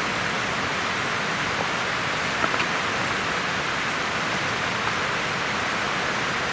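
River water rushing steadily, an even hiss of flowing water, with a few faint small clicks about two and a half seconds in.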